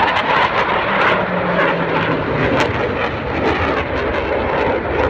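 Loud jet noise from an F/A-18 Hornet's twin jet engines flying a display, with a low tone sliding slightly down about a second in.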